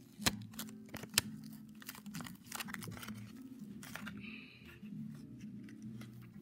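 Soft background music with low held notes, over the rustling and crinkling of a cardboard tube being handled as sticks are pushed through it. Two sharp clicks about a second apart near the start are the loudest sounds.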